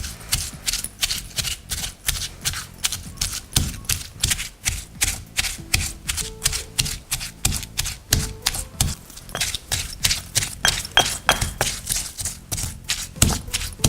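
Pestle pounding fresh garlic, red chilies, lemongrass, ginger, coriander and cinnamon with chili paste in a mortar, a steady run of sharp strikes at about four a second, making a coarse curry paste.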